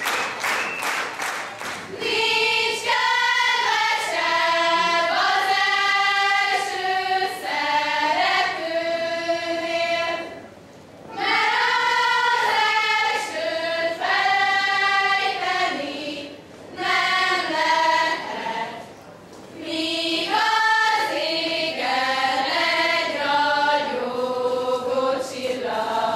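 A group of girls singing a Hungarian folk song together in long phrases with short breaks between them. Audience clapping in time is heard for about the first two seconds, before the singing starts.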